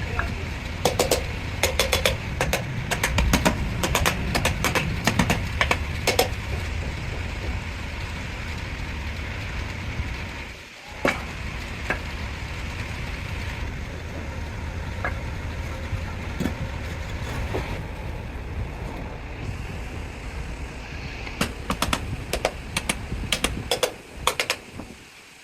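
A steady low machine rumble with bursts of sharp knocks and clicks, thick in the first few seconds and again near the end. It cuts out briefly about eleven seconds in.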